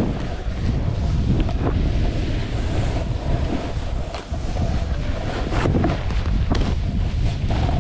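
Wind rumbling on the microphone of a snowboarder's action camera while riding through soft snow, with short scrapes and knocks from the snowboard on the snow scattered through it.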